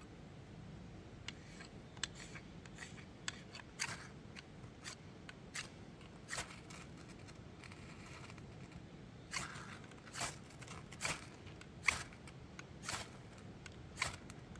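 Knife being sharpened on a sharpening steel: a series of short metallic scraping strokes, light and quick at first, then longer, louder strokes about one a second in the second half.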